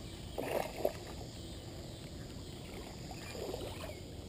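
Hooked largemouth bass splashing at the pond's surface while being reeled in, a brief splash about half a second in and a fainter one later.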